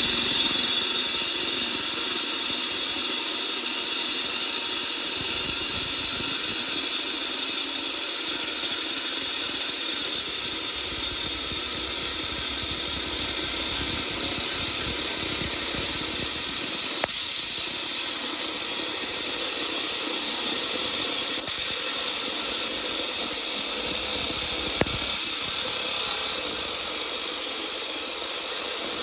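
Flamingo 429-1 3500 W electric disc cutter running with its cutting disc grinding through concrete: a steady, hissing grind, broken by three brief clicks in the second half.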